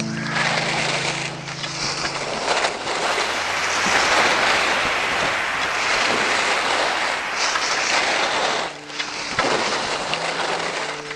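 Steady rushing wind noise on the microphone, of the kind picked up while skiing downhill.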